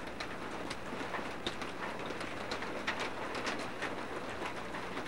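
Steady storm noise outdoors, a rain-like hiss, with scattered short high chirps and crackles.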